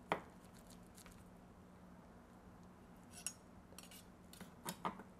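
Chef's knife slicing down through a meatloaf onto a wooden cutting board, with a few sharp clicks and taps of knife and fork. The loudest click comes just after the start, and a pair of taps comes near the end.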